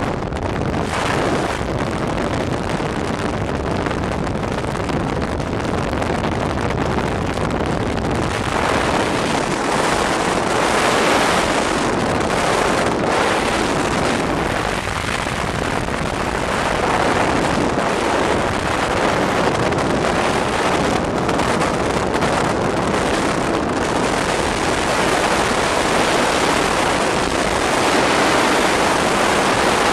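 Steady rushing road noise from a moving vehicle, with wind buffeting the microphone.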